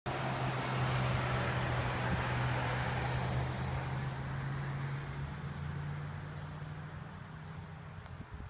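A motor vehicle driving past, its engine hum and road noise loudest in the first few seconds, then fading away.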